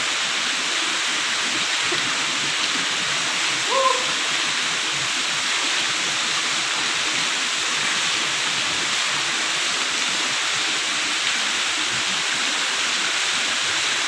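Waterfall pouring down a rock face into a plunge pool: a steady rushing of falling water. A brief pitched call cuts through about four seconds in.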